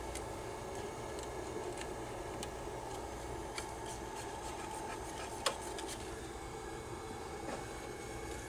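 Steady hum of the powered-on printer, with a few faint light clicks and one sharper click about five and a half seconds in as the thin plastic encoder strip is handled and fed through the carriage.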